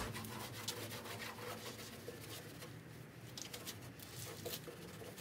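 A Clorox disinfecting wipe rubbed and scrubbed over the car's grille opening: faint, irregular scratchy rubbing with small ticks.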